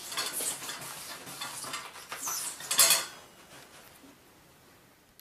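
A cat rustling and scratching at toilet paper, irregular scrapes and crinkles with a loud burst about three seconds in, then fading away.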